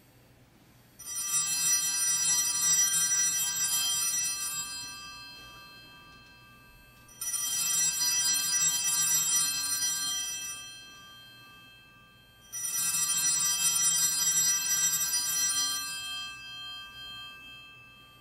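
Altar bells rung three times, each ringing starting suddenly, holding for about three seconds and then dying away. They mark the elevation of the chalice just after its consecration at Mass.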